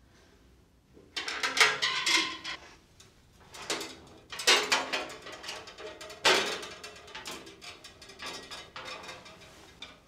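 Hand tools worked in several short bursts of rapid metallic clicking, starting about a second in, during work on the brake plumbing.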